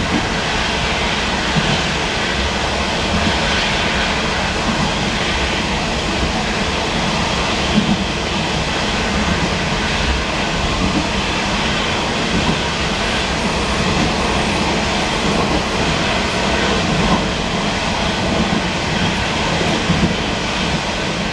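Old-type Taiwan Railways passenger coach running along the line: a steady rumble of steel wheels on rail, with an occasional sharper knock.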